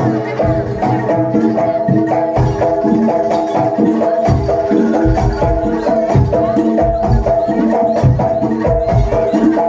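Jaranan gamelan music: quick repeated metallophone notes over regular low drum strokes, at a steady brisk pulse.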